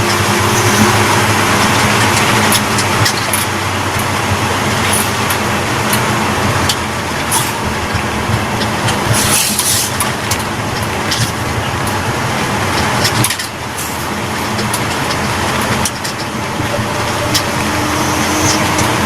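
Suzuki Carry T120SS pickup running with a fake turbo whistler fitted to its exhaust, a steady engine and exhaust rush with a brief brighter hiss about halfway through.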